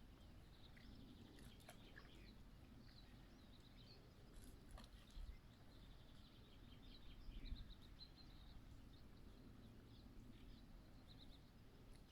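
Faint songbirds chirping and trilling, with short rapid runs of high notes scattered throughout, over a low outdoor background hum.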